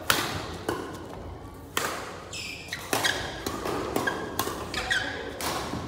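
Badminton rackets striking the shuttlecock in a fast doubles rally: a string of sharp smacks, the loudest a smash right at the start, echoing in a large hall. Between the hits, shoes squeak on the court floor.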